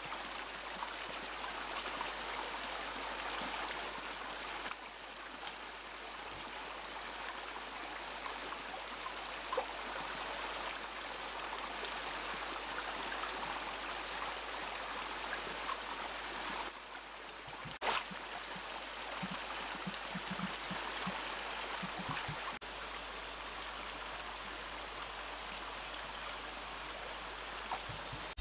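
Water splashing from a bamboo pipe and running over the rocks of a shallow stream: a steady rush of water, with one sharp click a little past the middle.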